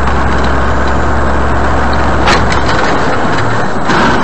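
Vehicle engine and road noise heard from inside the cab while driving along a highway, with a steady low hum. A short knock comes about two seconds in.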